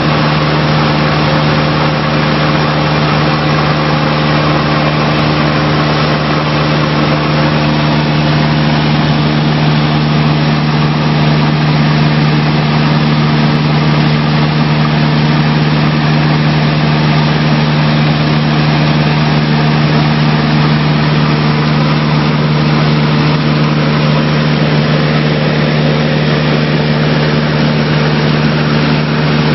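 High-wing light aircraft's engine and propeller droning steadily in flight, heard from inside the cabin. The note holds constant throughout.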